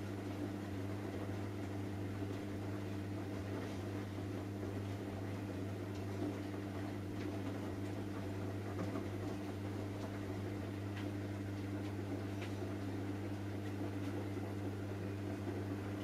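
Samsung Eco Bubble front-loading washing machine tumbling laundry during the wash of a cotton 90 °C cycle: a steady low motor hum with a few faint ticks.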